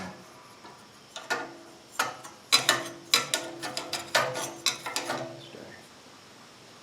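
Metal hand tools clicking and clinking against engine parts, a ratchet-like string of sharp clicks running from about one second in and stopping at around five and a half seconds.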